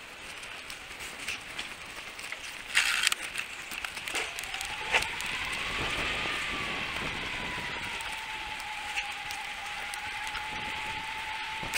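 Mountain bike ridden along a tarmac street: a steady rush of wind and road noise with light rattling clicks, and a loud clatter about three seconds in. From about four seconds a humming whine from the knobby tyres rises in pitch, then eases back and holds steady.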